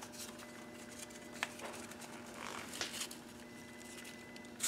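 Faint rustling and scattered crackles of a brittle, yellowed old newspaper clipping being unfolded and handled, over a low steady hum.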